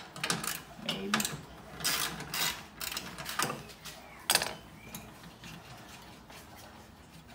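Hand socket ratchet clicking in short, irregular runs as fasteners are worked, with a sharp metallic knock about four seconds in. The last couple of seconds are quieter.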